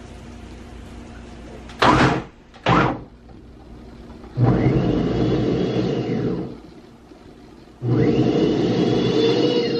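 Countertop blender chopping rock-hard stale bread into crumbs: two short pulses, then two runs of about two seconds each, the motor's pitch starting to fall near the end of the second run.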